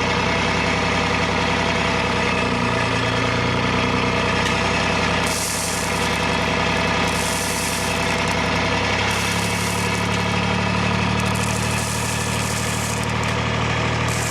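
A machine engine running steadily at idle. Several short bursts of hiss come and go over it from about five seconds in.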